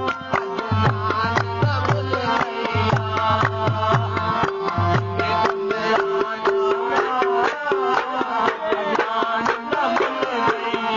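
Instrumental passage of Punjabi folk music: hand drums play a quick, steady rhythm under a winding melody line. Deep low drum strokes drop out about halfway through.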